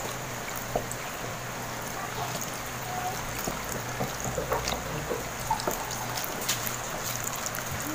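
Water being poured into a pot of cooked glutinous rice, trickling, with a few light knocks.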